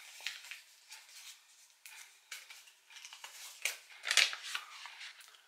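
Paper slips rustling and crinkling in the hands as they are folded and unfolded, in short irregular crackles, with a louder bout about four seconds in.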